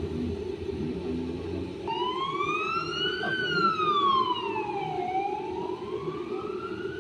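Ambulance siren wailing, starting about two seconds in: a slow rise and fall in pitch, up, down and up again, over a steady rumble of traffic and the moving vehicle.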